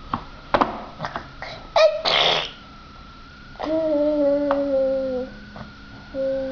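A young child vocalizing wordlessly: a short rising squeal with a breathy burst about two seconds in, then a long held vowel sound that sinks slightly in pitch, and a brief one near the end. A few light clicks come before it.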